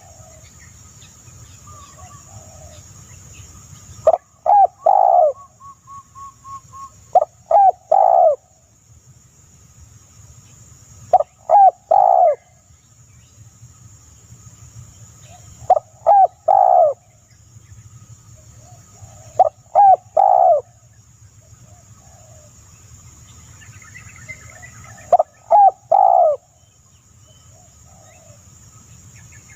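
A bird calling in loud, short phrases of three or four quick falling notes, repeated six times about every four seconds, with faint chirps between the phrases and a steady high hiss behind them.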